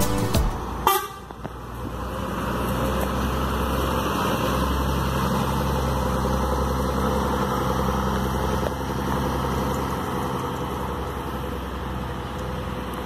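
Coach bus engine running as the bus pulls away and drives past over cobblestones, with a steady rumble and tyre noise that swells as it passes and eases off as it moves away. A short sharp sound comes about a second in.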